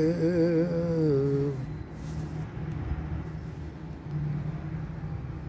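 A man's voice drawn out on one held, slightly falling note that fades about a second and a half in. After it comes a steady outdoor background of low hum and noise.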